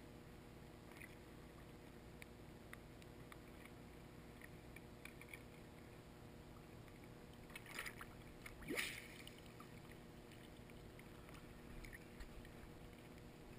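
Near silence heard through a GoPro's waterproof housing at the pool surface: a faint steady hum with small water ticks against the housing. Two brief louder sloshes come about eight and nine seconds in, the second with a short rising gurgle.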